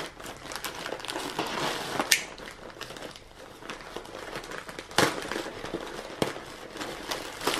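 Grey plastic mailer bag crinkling as it is cut and pulled open by hand, with a few sharp snaps along the way.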